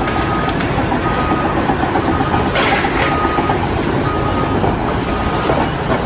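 Loud, steady rumbling and clattering of heavy machinery, with a reversing alarm beeping about once a second.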